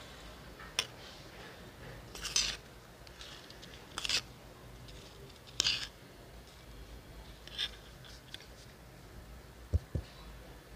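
Metal spoon scraping and clinking against a small steel bowl of thick red paste as it is stirred, in about five short strokes a second or two apart, close to the microphone. Two low knocks follow near the end.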